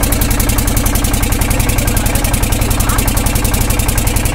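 Engine of a wooden river boat running steadily, with a rapid, even beat.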